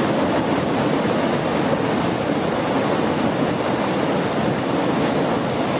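Mountain river rushing in whitewater over and between granite boulders, a steady, dense roar of water.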